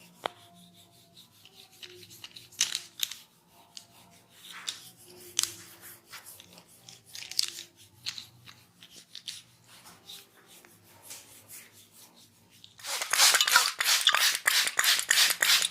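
Hands massaging a client's head: soft, scattered rubbing and light clicks, then about 13 seconds in a loud, fast run of vigorous hand strokes on the head and hair.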